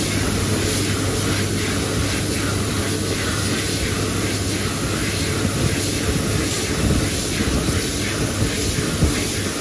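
Dyson Airblade dB (AB14) hand dryer running, a steady rush of air with a low hum, as a hand is held in its blade slot.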